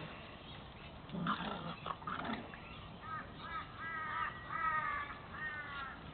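Staffordshire bull terrier puppies squealing in a quick run of short, high, arching calls through the second half, after a few short rough grunts from the dogs at play.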